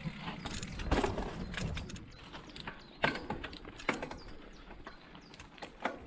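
Mountain bike ridden slowly on a dirt singletrack: irregular sharp clicks and knocks from the bike's chain and drivetrain, the loudest about three, four and six seconds in, over tyre rolling noise that dies away in the first couple of seconds as the bike slows to walking pace.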